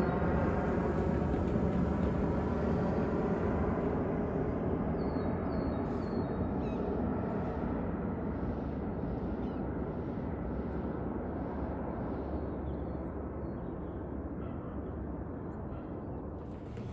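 Twin-engine jet airliner passing overhead, its engine noise a steady rush with a faint tone at first, slowly fading as it flies away.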